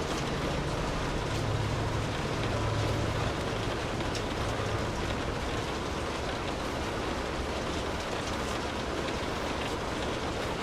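Steady rainfall, an even hiss with scattered sharp drop ticks. A low rumble rises about a second in and fades out by about five seconds in.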